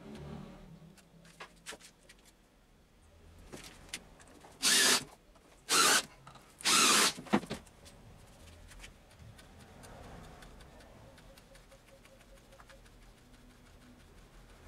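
Three short, loud bursts from a workshop power tool, each under a second long and about a second apart, with a few light clicks and knocks around them.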